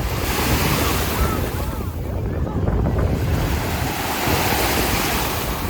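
Waves washing onto a beach in two long surges, under a steady low rumble of wind buffeting the microphone.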